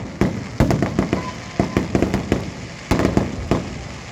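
Fireworks finale: many bangs and booms going off in rapid, irregular succession, several a second, with crackling between them.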